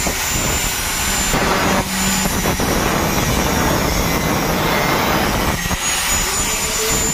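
Angle grinder cutting through metal exhaust pipe: a loud, steady high-pitched whine over harsh grinding noise, with the pitch and load shifting a few times as the disc bites.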